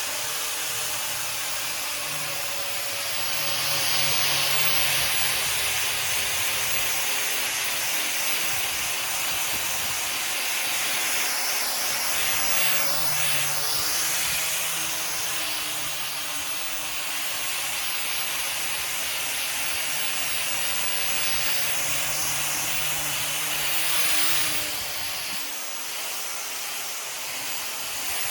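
Electric orbital sander running on a wooden table top: a steady hiss of sandpaper on wood over the motor's hum.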